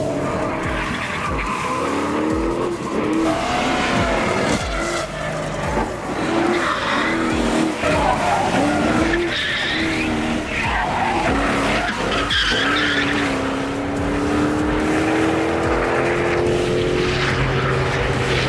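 Mercedes-Benz SL500 R129's M119 V8 driven hard, its note swelling up and down in short surges about once a second as the car slides through corners, with tyres skidding and squealing. In the last several seconds the engine pulls in one long steady climb in pitch.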